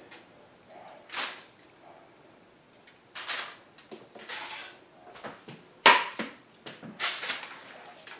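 Aluminium foil crinkling in several short bursts, with a few light knocks, as filled baguette pieces are set onto a foil-lined baking tray and the foil is handled; the loudest crinkle comes about six seconds in.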